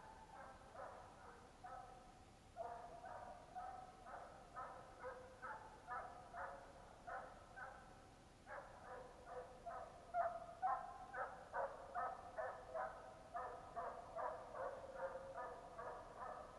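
Hunting dogs baying in the distance, giving voice on a fox's trail: a steady run of barks about two a second, pausing briefly twice, then faster and louder after about eight seconds.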